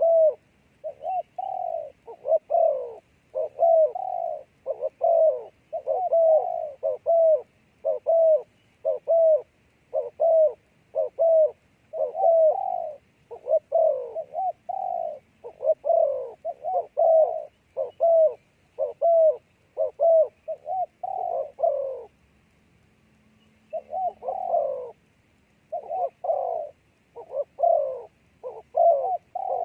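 Dove cooing in a long, rapid run of short coos, two or three a second, that breaks off for about two seconds roughly three quarters of the way through and then resumes.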